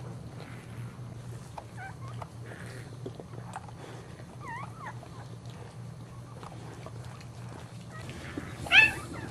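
Newborn Boxer puppy squeaking: faint high squeaks about two and four and a half seconds in, then one loud cry near the end, over a steady low hum.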